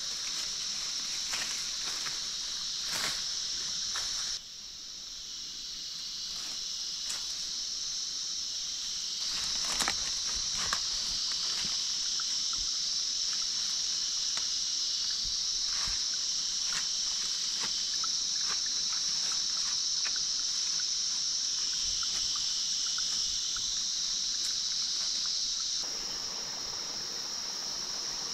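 A steady, high-pitched drone of forest insects, with scattered rustling and snapping of ferns and undergrowth as they are pulled and gathered by hand.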